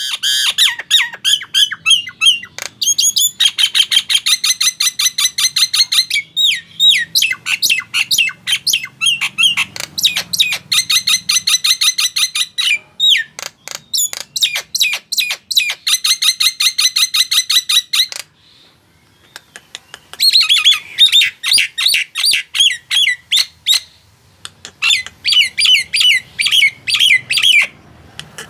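Jalak Nias starling calling in long runs of rapid, harsh, repeated notes, several a second, in chattering bursts, with a short pause about two-thirds of the way through.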